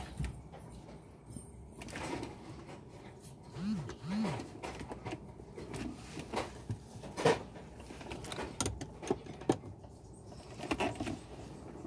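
Scattered clicks and knocks of metal being handled in a car's exposed gear shifter mechanism, which is broken and jammed. Two short rising-and-falling squeaks come about four seconds in, and a sharper click about seven seconds in.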